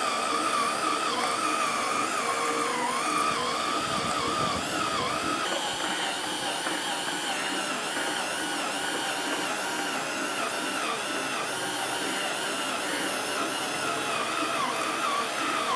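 Cordless Makita drill running steadily, turning the auger of a hand-crank meat grinder as meat chunks are fed in; its motor whine wavers and dips briefly again and again as the load comes on.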